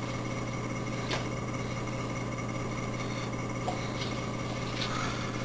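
Steady low electrical hum of room tone, with a few faint short taps and knocks: one about a second in and a few more near the end.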